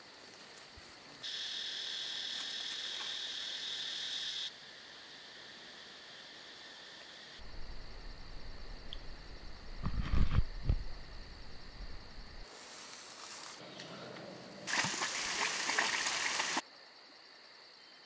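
Tropical forest insects shrilling in a steady high chorus for a few seconds. Around the middle come low rumbling and thumps of a handheld camera being carried along the trail. Near the end there is a brief loud hiss.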